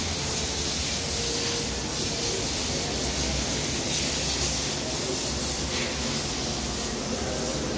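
Steady hissing workshop background noise with a low hum underneath, unchanging throughout.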